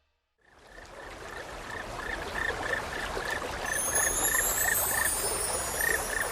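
Flowing stream with a frog croaking in a steady rhythm, about three croaks a second, fading in after a moment of silence; high rising whistles join about halfway.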